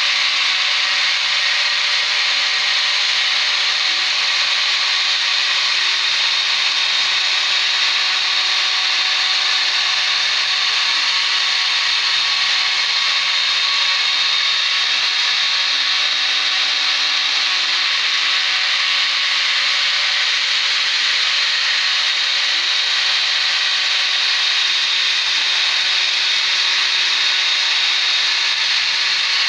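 Homemade CNC router milling a wooden board: the 775 DC spindle motor runs steadily while its bit cuts a groove into the wood, giving a continuous high-pitched cutting noise.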